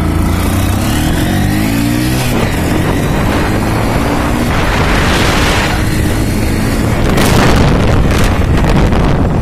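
Motorbike engine pulling away, its pitch climbing over the first couple of seconds, then running steadily at riding speed, with wind rushing over the microphone at times.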